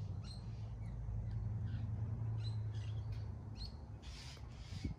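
Small birds chirping, short calls every second or so, over a steady low rumble.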